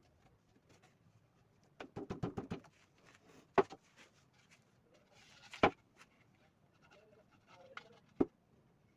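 Sharp knocks and clicks of wooden boards being handled during a panel glue-up: a quick rattle of about six clicks about two seconds in, then three separate sharp knocks, the loudest in the middle.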